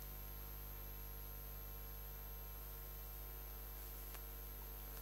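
Quiet, steady room tone: a low electrical hum and faint hiss in a small room, with no distinct sound events.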